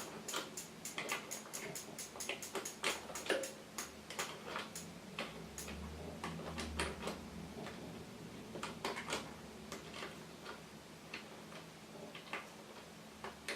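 Ratchet with a 14 mm socket clicking in runs of sharp ticks as the crank bolt is unscrewed. The ticks come quickly at first and thin out in the second half.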